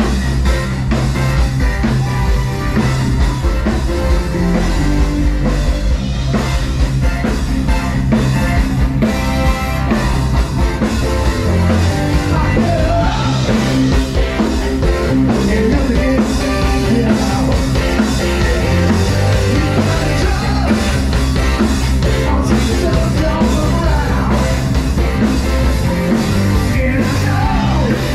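Live rock band playing loud, with a man singing into a microphone over it.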